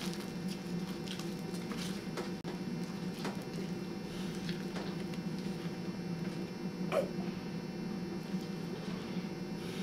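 A person eating pie messily with bare hands and mouth: scattered wet smacking and squelching sounds, one louder about seven seconds in, over a steady electrical hum.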